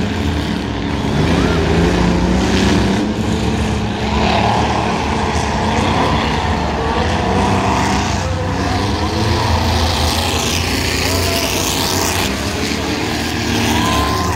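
Several pickup trucks' engines racing on a short track, revving up and down as they pass and lap, with a crowd talking.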